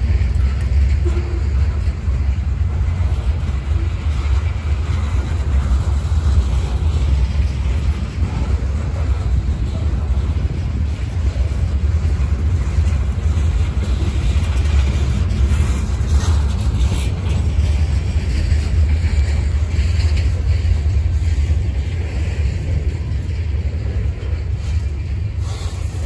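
Freight cars of a long CSX train rolling past close by: a steady low rumble of steel wheels on the rails.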